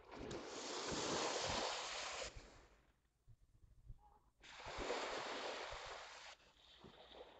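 Surf washing onto a beach: two swells of rushing noise, each lasting about two seconds, with a quieter gap between them.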